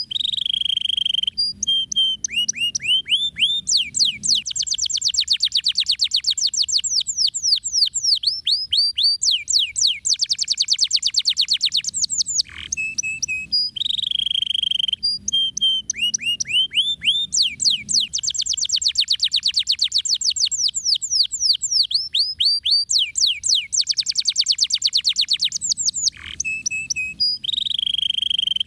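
Domestic canary singing a long, unbroken song of fast trills (rolls): rapid runs of repeated high sweeping notes that change from phrase to phrase. The same song passage plays again about halfway through.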